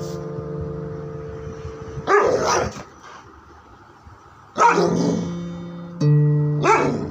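A black Labrador retriever barks three times, a couple of seconds apart, over background music of held piano or keyboard notes.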